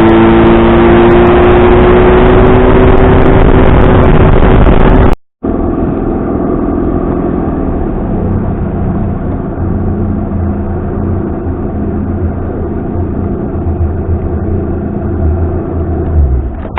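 Boat's outboard motor running at speed, its pitch rising slightly over the first five seconds. After an abrupt cut, a quieter, lower engine drone continues until shortly before the end.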